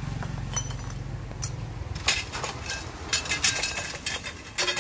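Hard metallic clinks and knocks of metal parts being handled, coming in quick clusters over the second half, over a low steady hum that fades out about two seconds in.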